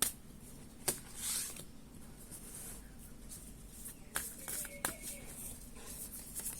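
Tarot cards being handled and laid out on a table: a few light taps and a brief swish of card about a second in.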